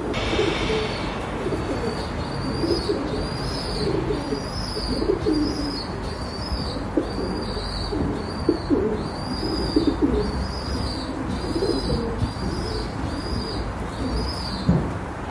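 Pigeons cooing in low warbling calls, over a steady background noise. A high, short chirp repeats at an even pace throughout, and a brief high ringing tone sounds at the very start.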